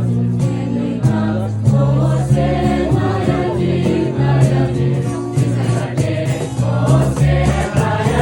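Youth choir singing a Christmas carol over instrumental accompaniment, with a steady bass line that changes notes every second or so and a regular beat.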